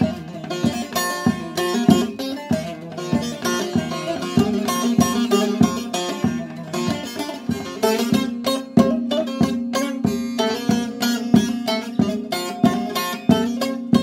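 Mulberry-wood bağlama (Turkish long-necked saz) played solo with a plectrum: a quick, rhythmic run of plucked notes over a steady ringing tone from the strings.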